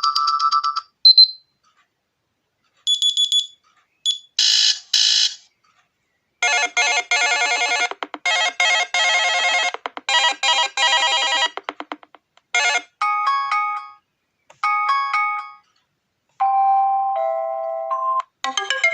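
Xiaomi Mi A2 Lite alarm tones played one after another, about nine different electronic melodies and chimes, each breaking off after one to five seconds with short silences between them.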